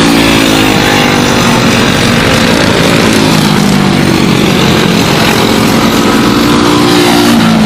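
Several Briggs & Stratton Animal four-stroke kart engines running at race speed. The engine notes overlap and rise and fall in pitch as the karts accelerate and lift.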